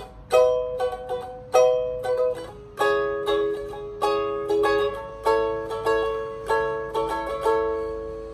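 Beyond UK-17 17-inch pocket ukulele with a red pine veneer body, tuned B E G♯ C♯, strummed in chords: a sharp strum roughly every half second to second, each chord ringing and fading, and the last chord left to ring out near the end.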